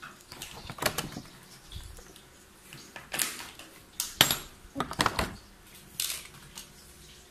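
Hard plastic clicking and clattering as a Beyblade spinning top and its launcher are handled and snapped together, in about five separate bursts, the loudest just after four seconds in.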